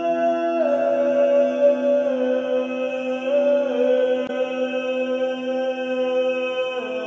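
A voice chanting long held notes that step down in pitch now and then, over the steady ringing drone of a quartz crystal singing bowl played with a mallet.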